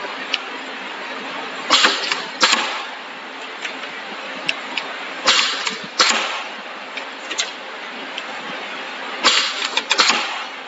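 Semi-automatic wrap-around labeling machine running three labeling cycles about four seconds apart. In each cycle its air-driven pressing head clacks down and back up with a short rush of air, the two strokes under a second apart, over a steady hiss.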